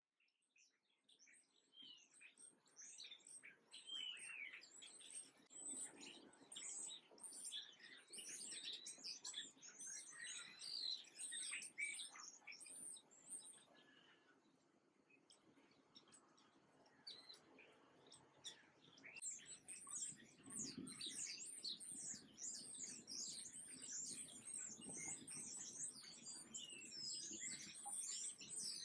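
A flock of small songbirds chirping and twittering, with many short, high calls overlapping. The chirping fades in at the start, thins out about halfway through, then comes back dense for the rest.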